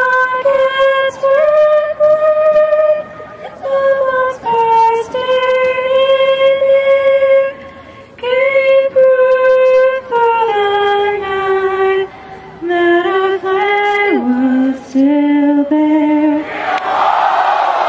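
A woman's voice singing solo and unaccompanied, holding long notes, with the melody stepping down to lower notes in the second half. A short rush of noise comes near the end.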